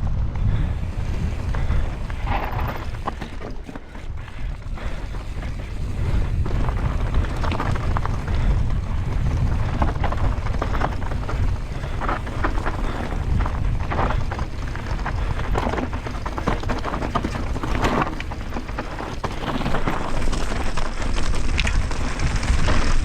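Mountain bike descending a rough trail at speed: wind buffeting the microphone in a steady low rumble, with frequent knocks and rattles as the tyres and bike hit rocks and bumps.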